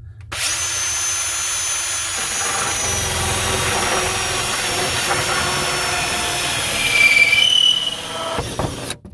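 Power drill running at full speed in reverse, turning a hole saw through the plastic wall of an IBC tank: a steady grinding whine with high squealing tones. It grows loudest, with a sharper squeal, about seven seconds in, then stops suddenly near the end.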